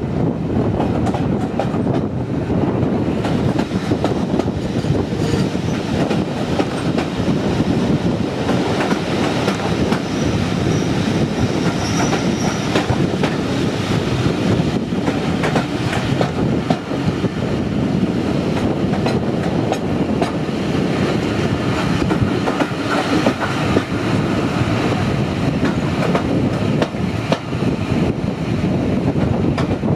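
Diesel-hauled train running along the track: a steady rumble with the clickety-clack of wheels over rail joints, and a faint high wheel squeal briefly a little before the middle.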